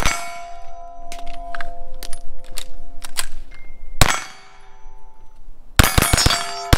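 Sharp metallic clangs, each leaving a long bell-like ring: one at the start, one about four seconds in, and a quick run of strikes near the end.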